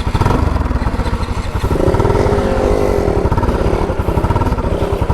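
Motorcycle engine running close by with a fast, steady low throb.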